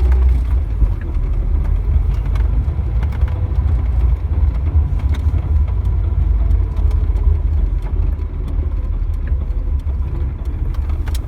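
GAZ-3110 Volga on the move: steady low road and running-gear rumble, with the rhythmic knock from around the right rear wheel.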